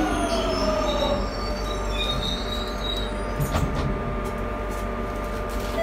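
Jubilee Line tube train braking into a station: the traction motors' whine falls in pitch and levels off about a second in, with faint high squeals from the wheels and brakes. A short clunk comes about three and a half seconds in as the train comes to rest, then the steady hum of the standing train's equipment.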